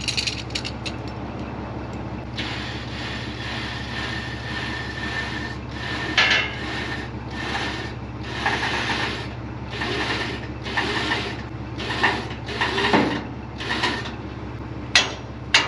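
Wrecker winch cable being pulled out over the boom pulley by hand, a rasping stroke about once a second, with a steady low hum underneath and two sharp clicks near the end.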